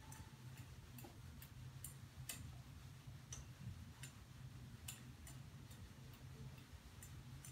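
Near silence: room tone with a low hum and faint, light ticking, about two ticks a second.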